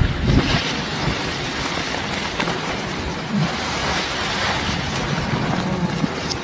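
Steady rumbling roar of a tall chimney's demolition collapse and falling debris, with a few low thumps about half a second in.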